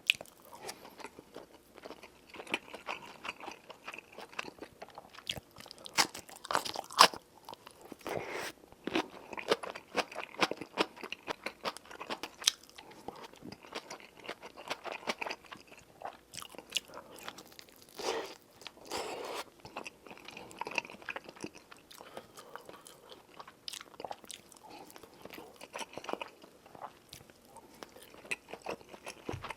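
Close-miked chewing and biting of food, with crunches and sharp clicks scattered irregularly throughout.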